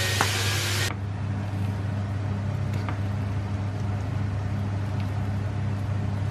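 Hot oil sizzling around pork belly pieces frying in a pot, stopping abruptly about a second in. A few faint clicks follow as a fork mashes potatoes in a glass dish. A steady low hum runs underneath throughout.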